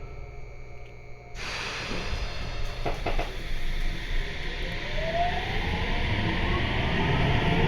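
Sendai Subway 1000N series train starting off, heard from inside the car. Running noise sets in suddenly about a second and a half in, with a couple of knocks near three seconds. From about four and a half seconds the IGBT-VVVF inverter's whine climbs steadily in pitch as the train accelerates.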